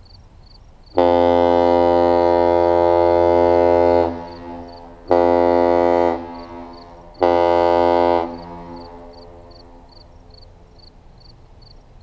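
Lake freighter's horn sounding one long blast followed by two short blasts, loud and deep.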